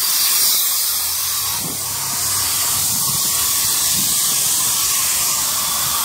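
Steady hiss of compressed air bleeding from the concrete mixer truck's barely opened air-tank drain valves, blowing moisture out of the air system as the pressure drops.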